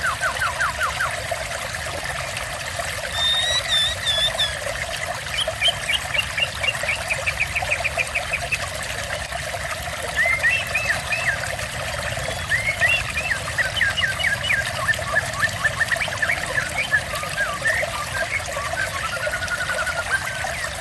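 Steady trickling water with birds singing over it: fast runs of repeated chirps and short whistled phrases, starting and stopping several times.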